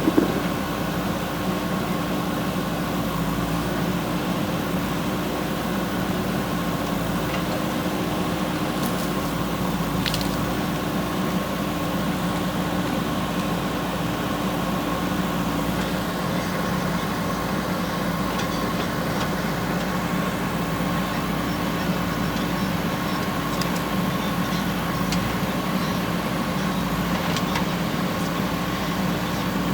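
JCB 3DX backhoe loader's diesel engine running steadily at an even pitch, with a few faint clicks and knocks.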